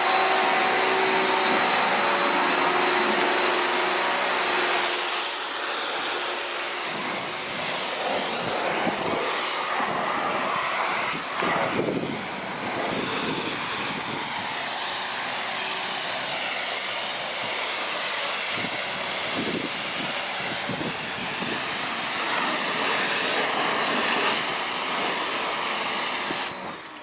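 Electric Karcher pressure washer running, its high-pressure water jet hissing steadily from the spray gun, with a motor hum clearest in the first few seconds. The spray stops abruptly just before the end.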